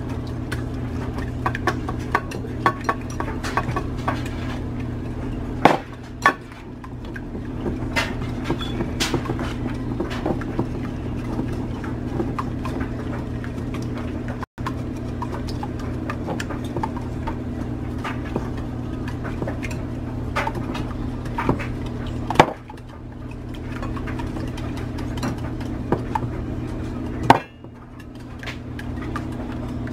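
Scattered light clicks and taps from fish fillets being handled and seasoned, over a steady low hum, with a few sharper knocks.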